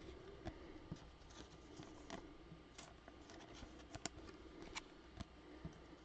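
Near silence with faint, scattered clicks and slides of glossy Topps Chrome baseball cards being flipped through and stacked by hand.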